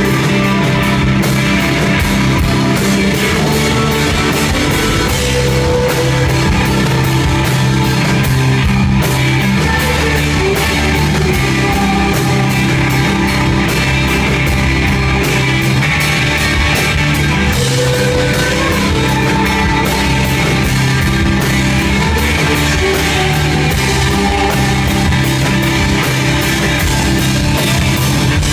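Live rock band playing loudly: electric guitar through amplifiers over a driving drum kit, a continuous full-band mix.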